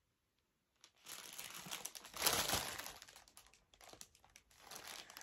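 Clear plastic bag crinkling as it is handled. It starts about a second in, is loudest a little after two seconds, then falls to lighter, intermittent rustles.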